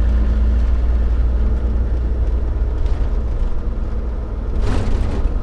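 Steady low rumble of a vehicle's engine and road noise, heard from inside the cab while driving. A brief rushing noise comes about four and a half seconds in.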